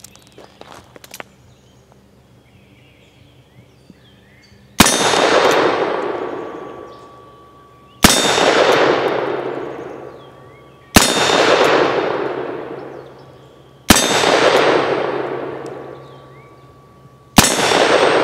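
Five shots from a .38 Special single-action revolver, about three seconds apart, likely black-powder loads. Each shot is followed by the clang of a steel silhouette target being hit and ringing for two to three seconds as it fades.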